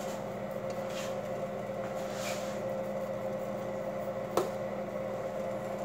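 Steady electrical hum of a running household appliance, with one short sharp click a little over four seconds in.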